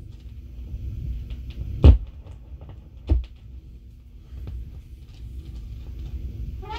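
Stylus running in the blank groove between jingles on a 16-inch vinyl transcription disc at 33 rpm on a Gates CB-500 turntable. Light surface ticks sit over a low rumble, with two loud pops about a second apart near the middle.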